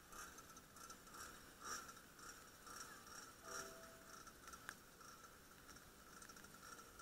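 Near silence: faint outdoor ambience with soft, irregular ticks and high chirps.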